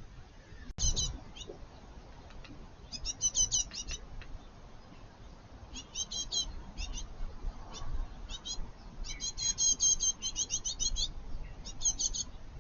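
Small songbirds at a garden feeder calling: rapid runs of high chirps in several bursts, the longest and loudest a little past the middle.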